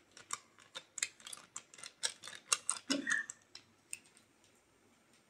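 Light, irregular clicking and tapping, several clicks a second, as garam masala is added to the dish. The clicks fade out about four seconds in.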